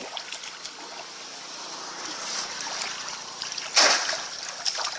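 Water splashing and trickling, with one short, louder splash nearly four seconds in.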